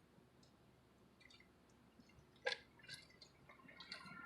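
Near silence, broken about two and a half seconds in by a sharp wet click, then a few fainter clicks: small mouth sounds of eating chicken wings.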